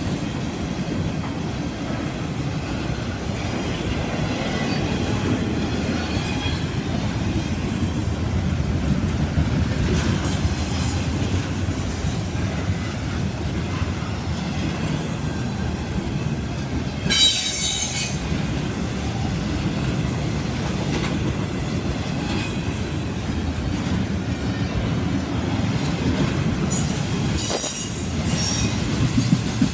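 BNSF intermodal freight train's double-stack container cars and trailer flatcars rolling past: a steady rumble of wheels on rail, with a brief, loud, high-pitched wheel squeal about 17 seconds in and a shorter one near the end.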